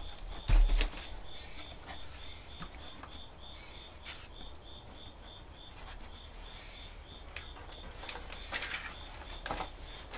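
Insects chirping steadily in even pulses, about three to four a second. There is a knock about half a second in and a few rustles near the end.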